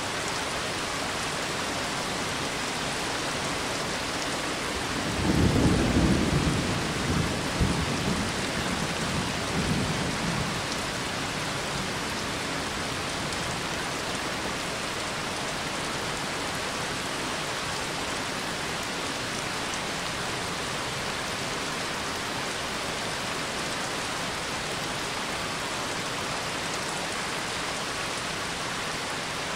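Steady rain with a low roll of thunder that starts about five seconds in, rumbles for several seconds and fades back into the rain.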